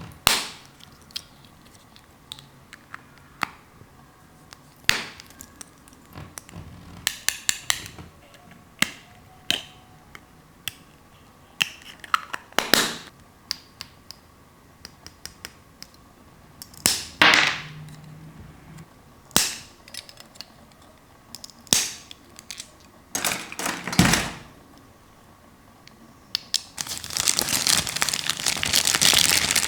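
Small hard plastic toy pieces being handled: scattered clicks and taps, some in quick rattling runs. Plastic packaging crinkles steadily near the end.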